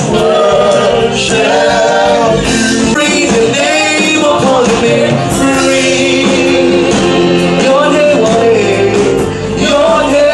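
Gospel praise music with a male voice singing over a live band.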